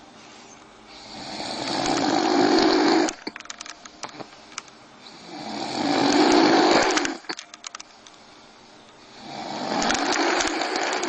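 A sleeping man snoring loudly: three long rasping snores about four seconds apart, each building up and then breaking off abruptly, with faint clicks in the quiet between them.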